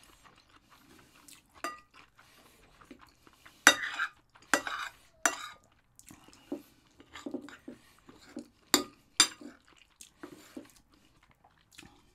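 A metal utensil clinking and scraping against a plate of fried rice as it is being eaten: a series of sharp clinks and scrapes a second or more apart, the loudest about four seconds in and near nine seconds.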